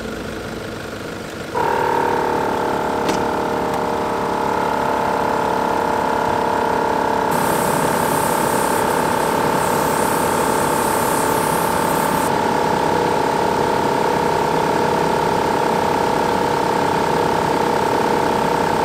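Portable tyre air compressor starting about a second and a half in and running steadily with a constant whine, pumping a 4WD's tyres back up after off-road driving. A higher hiss joins for about five seconds in the middle.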